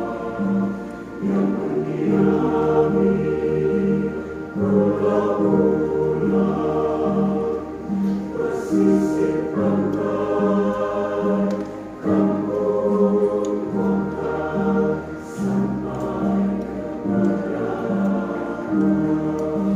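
Church choir singing a hymn in several parts, the phrases rising and falling every few seconds, over a steady pulse of low accompanying notes just under two a second.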